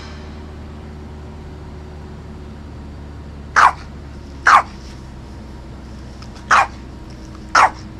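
A dog barking four short times, two just after the middle and two near the end, over a steady low hum.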